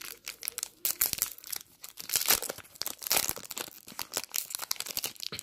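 Paper trading-card pack being torn open and its wrapper crinkled by hand, a busy, irregular crackling.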